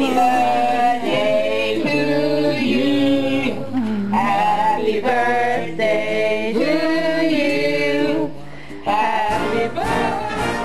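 Background music: a song with singing over instrumental accompaniment. About a second before the end it breaks off and a different piece of music begins.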